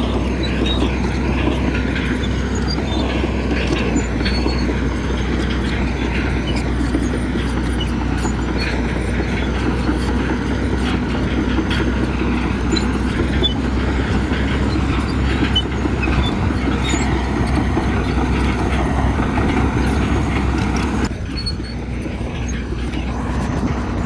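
Crawler bulldozer's diesel engine running steadily, with continuous clanking and rattling from its tracks; the sound eases a little a few seconds before the end.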